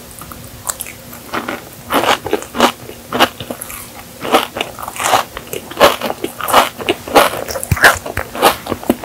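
Crunchy chewing of a mouthful of Dubai chocolate cake, the toasted kadaif pastry in its pistachio filling crackling in irregular bites. The crunches come sparsely at first and grow much more frequent about halfway through.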